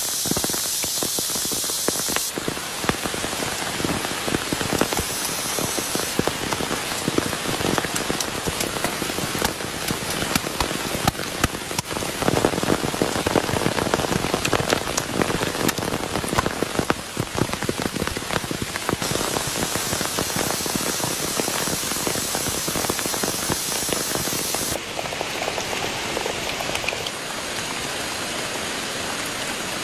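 Steady rain, many drops striking a surface in a dense stream of small ticks. The sound changes abruptly a few times.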